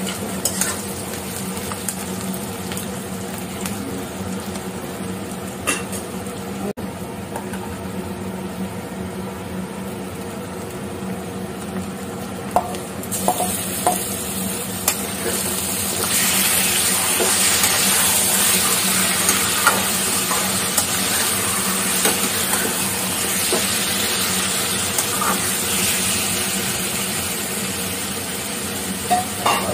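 Onions frying in oil in a metal kadhai, sizzling steadily while a spatula stirs them with scattered scrapes and taps on the pan. About 13 seconds in, the sizzle grows louder and brighter as marinated chicken pieces go into the hot oil.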